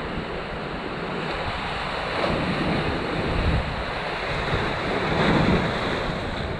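Sea surf breaking on a rocky shore, with wind buffeting the microphone; the wash swells up twice, about two seconds and about five seconds in.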